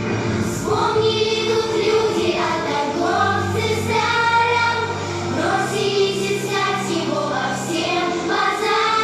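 A children's song playing: several voices singing together in unison over a backing track with sustained bass notes.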